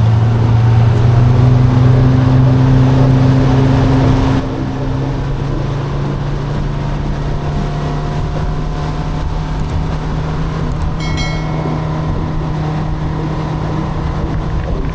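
Boat's outboard motor running under way, a steady engine hum. About four seconds in the level drops abruptly, and the engine note then climbs slowly.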